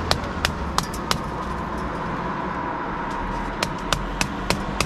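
Stiff churn brush beaten against lime mortar joints in a stone wall: sharp taps about three a second, a run of four at the start, a pause, then another run from about three and a half seconds in. The mortar is tamped back into the joints as it begins to set, closing shrinkage cracks and exposing the aggregate.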